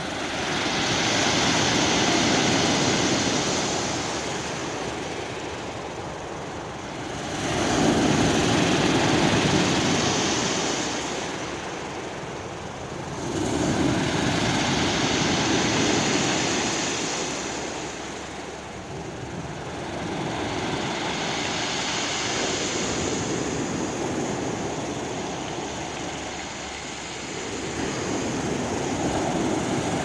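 Sea waves breaking and washing over a round-pebble beach, in about five slow surges that swell and ebb every five to seven seconds.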